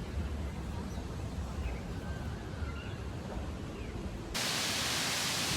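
Outdoor ambience: a low wind rumble on the microphone with a few faint high chirps. About four seconds in, it cuts abruptly to a steady rush of falling water, like a small waterfall splashing into a pond.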